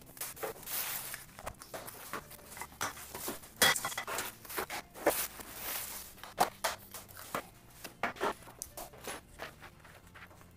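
Packing paper and cardboard rustling and crinkling as white sheet-metal cabinet panels are lifted out of their box, with scattered sharp knocks and clatters of the panels being handled, the loudest about four seconds in. Near the end, paper rustling as the instruction booklet is handled.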